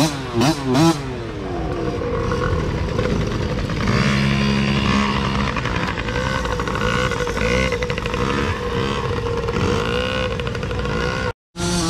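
Several small pee-wee dirt bike engines buzzing and revving as the bikes pass one after another, their pitches overlapping and rising and falling with the throttle, with sharp rev glides in the first second.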